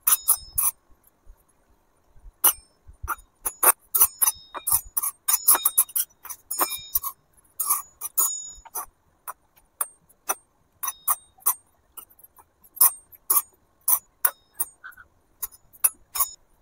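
A small metal spatula clinking against a miniature iron wok while a tiny pancake is turned: many quick, irregular metallic taps, each with a brief high ring.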